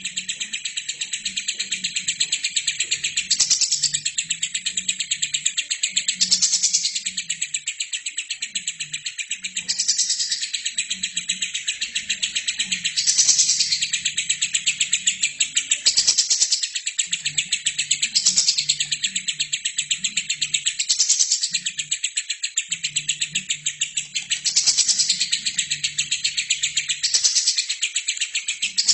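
Albino lovebird singing a long, unbroken chatter of rapid chirps that swells louder about every three seconds.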